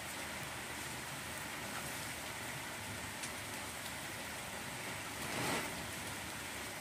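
Steady hiss of background noise, with one short, louder swish about five and a half seconds in.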